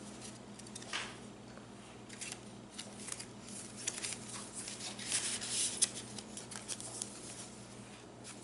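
Soft paper rustling and handling as a tag is slid in and out of a small paper envelope in a handmade journal, with light scattered clicks and rubs. The rustling is strongest about a second in and again in the middle.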